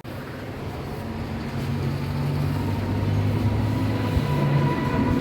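A motor running with a low steady hum and rumble. It starts suddenly and grows louder over the first two seconds, and a faint whine slowly rises in pitch.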